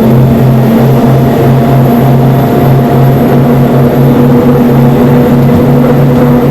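Twin Iveco diesel engines of an XRS 48 powerboat running at a steady high speed: a loud, even drone with a rushing hiss over it.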